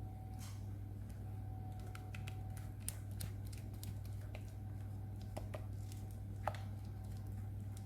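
Light scattered clicks and taps of a utensil against a bowl and tin as thick cake batter is scraped into a paper-lined loaf tin, over a steady low hum. One sharper tap comes about six and a half seconds in.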